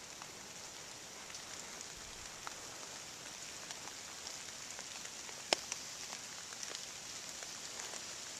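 Steady rain falling through the woods, a hiss of drops on the leaf litter and trees with scattered drops ticking close by, and one louder sharp tick about halfway through.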